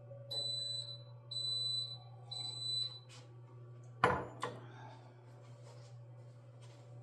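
Oven's electronic beeper sounding three high beeps, each about half a second long and a second apart, followed about four seconds in by a sharp clunk and a second knock just after, over a steady low hum.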